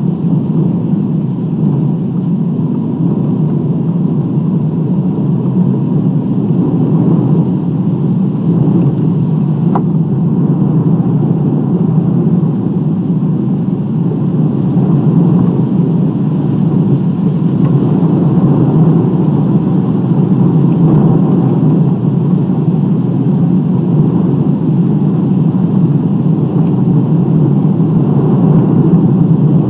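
Steady low rumbling noise from wind on the microphone of an outdoor osprey nest camera, with one brief faint high note about ten seconds in.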